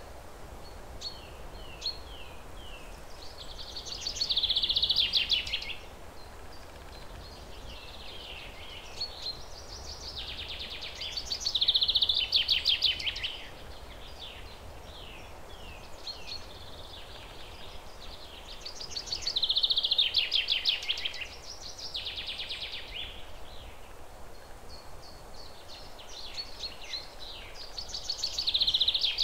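Birdsong: a song phrase repeats about every eight seconds, four times, each a run of short, falling chirps building into a fast, high trill that lasts a second or two.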